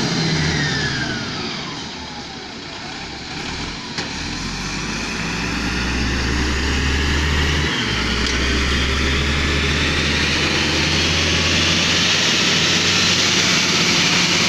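Komatsu GD555 motor grader's diesel engine running under load; its note falls over the first couple of seconds, then climbs steadily and grows louder through the rest. A single sharp click about four seconds in.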